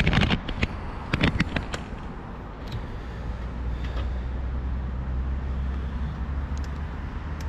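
A few sharp knocks and rustles in the first two seconds as the camera is handled and set down in grass, then a steady low rumble of road traffic.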